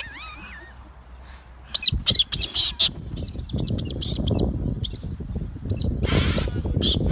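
A galah (rose-breasted cockatoo) calling: a faint wavering whistle, then bursts of short, harsh, high screeches and chirps, loudest about two seconds in and again near the end. This screaming is typical excited, happy galah behaviour. A low rustling runs under the calls from about three seconds in.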